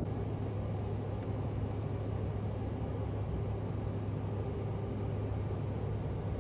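Steady vehicle rumble with a low hum and an even hiss, unbroken throughout.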